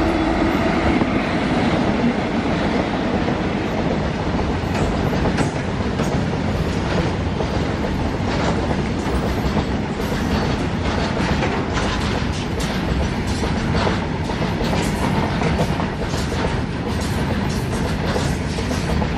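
Twin WAG-7 electric locomotives pass at close range, then a long rake of empty BOXN open wagons rolls by. The wagon wheels clatter over the rail joints in a dense, continuous run of clicks and knocks.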